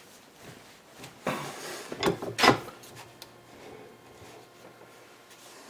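Hand-lever press driving a Mayhew hollow punch through a sheet of Garlock gasket material: a scraping rub about a second in, then a quick cluster of sharp knocks, the loudest about two and a half seconds in, followed by quieter handling.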